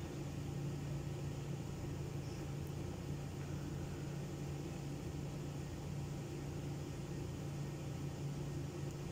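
Coil tattoo machine buzzing steadily as its needle lines a tattoo into skin.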